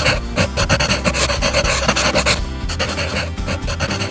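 Background music with a pencil scribbling on paper over it: a rapid, scratchy rasp of strokes with a brief pause partway through.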